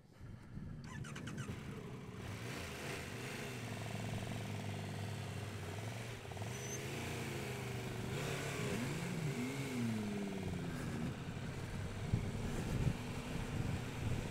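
Motorcycle engine idling steadily, with a few revs rising and falling in pitch in the second half.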